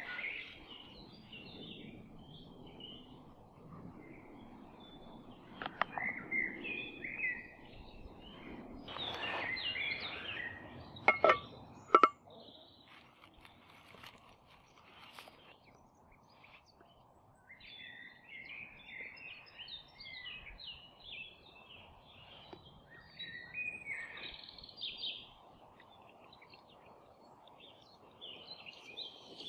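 Woodland birds chirping and singing on and off, over a low outdoor murmur. Around the middle come two sharp clicks about a second apart, the loudest sounds, as the plastic AeroPress coffee maker is handled.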